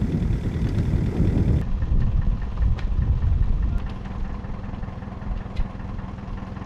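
Old Hyster forklift's engine running, a heavier rumble for the first second and a half, then a steady idle. A few light clicks sound over the idle.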